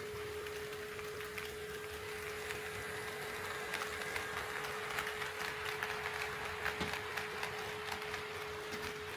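HO scale model train running on the layout track, its wheels clicking over the rail joints in a quick irregular patter that builds up about three seconds in and fades near the end as the train passes. A steady hum runs underneath.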